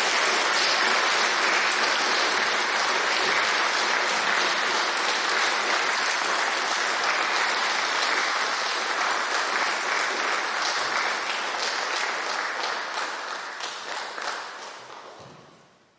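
Congregation applauding: a long, steady round of clapping that dies away over the last few seconds.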